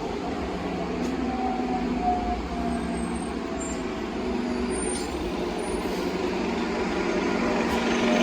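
Street traffic with a heavy vehicle's engine running close by, getting louder near the end.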